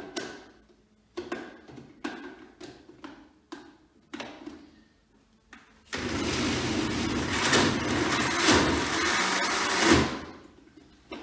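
Countertop blender running for about four seconds, churning soaked newspaper and water into paper pulp, then stopping suddenly. Before it starts there are a few clicks and knocks as the plastic jug and lid are handled and seated.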